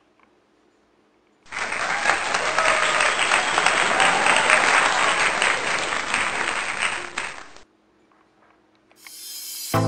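Crowd applause that starts abruptly about a second and a half in and cuts off about six seconds later. Music starts just before the end.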